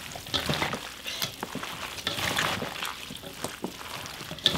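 Young radish and eolgari cabbage kimchi being tossed and squeezed by gloved hands in a metal bowl, mixing in the chili seasoning and salt. The wet leaves and stems make an irregular squelching, rustling crackle with small spikes.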